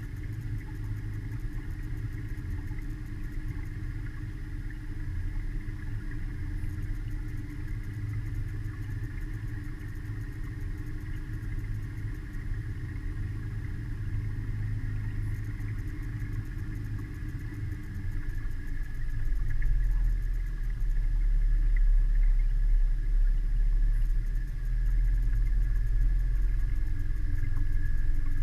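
Mariner outboard motor running steadily, a continuous drone with a faint whine above it. About 19 seconds in it gets louder, with a deeper rumble.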